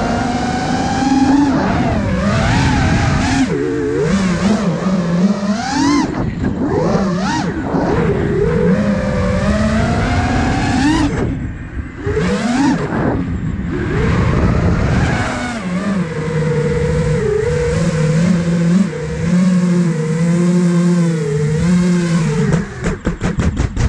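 Brushless motors and propellers of an iFlight Nazgul Evoque F5 5-inch FPV quadcopter whining, their pitch sweeping up and down with the throttle over a rush of air, heard from the camera riding on the drone. The whine drops away briefly just before halfway, then settles into a steadier hum before breaking into a rapid pulsing at the very end.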